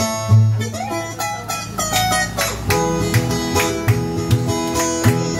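Brazilian ten-string viola playing an instrumental introduction: a plucked melody of quick single notes over low bass notes, before the singing comes in.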